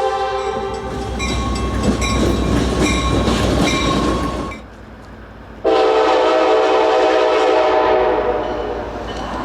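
Nathan K5LA five-chime locomotive air horn sounding a chord that ends about a second in, followed by a bell ringing about every two-thirds of a second. After a short lull, a second loud horn blast starts abruptly near the middle and fades after about two seconds.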